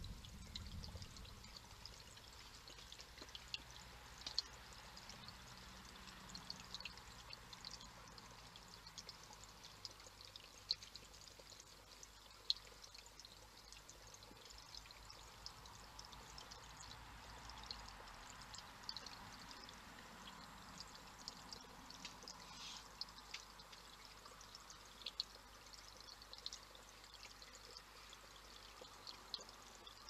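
Faint, steady trickle of water from a small stone cascade fountain, with scattered short high clicks over it. A low rumble fades out within the first second.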